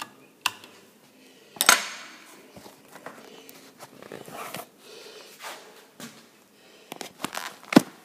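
A push-button wall switch clicks twice in quick succession. Then come knocks and rustling as a handheld camera is moved about, with a few footsteps and a cluster of knocks near the end.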